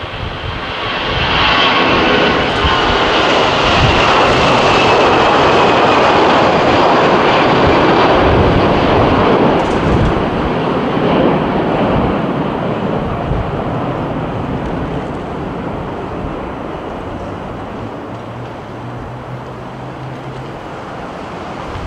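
Airbus A340-300's four CFM56 turbofan engines at takeoff thrust. The roar swells in the first two seconds, with a whine falling in pitch as the airliner rolls past. It stays loud through lift-off and fades slowly over the second half as the jet climbs away.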